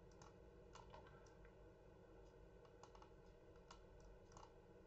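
Near silence with a handful of faint, scattered computer mouse clicks over a low room hum.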